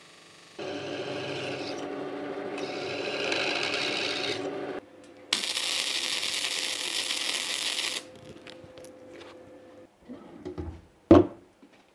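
Steel being ground on a running grinder, a steady hiss for about four seconds. Then an electric arc welding steel, a louder hiss for about three seconds. Near the end a wooden drawer is slid and knocks shut, the loudest knock about a second before the end.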